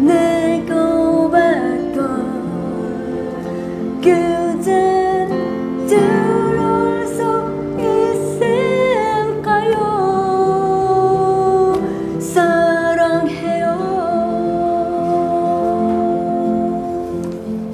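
A woman singing a slow ballad over electronic keyboard accompaniment, holding long notes with vibrato in separate phrases above sustained chords.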